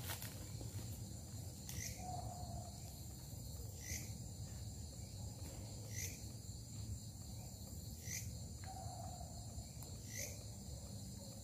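Faint night insects chirring steadily, with a short sweeping call repeating about every two seconds and a brief low note twice.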